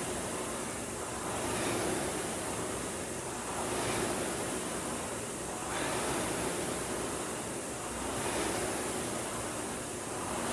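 Concept2 indoor rowing machine's air-resistance fan flywheel whooshing, surging with each drive stroke about every two seconds at a rate of 30 strokes a minute.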